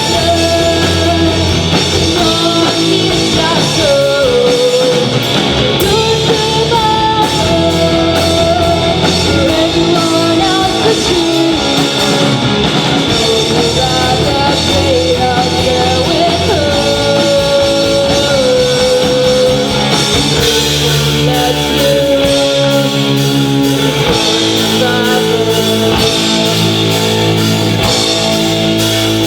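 A rock band playing live, with electric guitars and a drum kit; a gliding melody line over the top gives way to a denser, steadier chord-and-bass passage about two-thirds of the way through.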